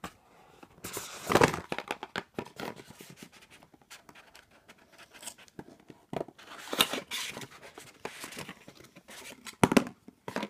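Cardboard being handled: a small advent-calendar box pulled out of its slot and opened, and a small product tube slid out of it. Scrapes, rustles and clicks come in several bursts, the loudest about a second and a half in and again near the end.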